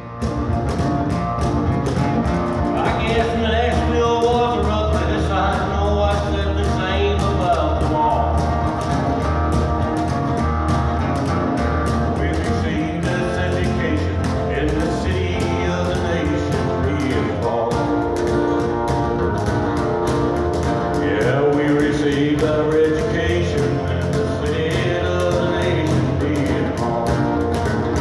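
Country-style song: singing over guitar with a steady bass line.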